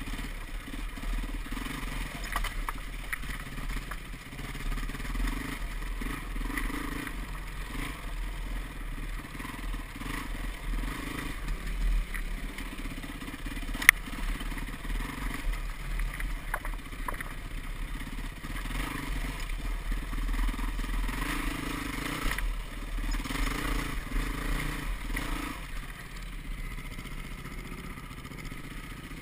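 Yamaha WR450F's single-cylinder four-stroke engine running as the dirt bike rides a rocky trail, the revs and level rising and falling with the throttle. A single sharp knock about halfway through stands out above the engine.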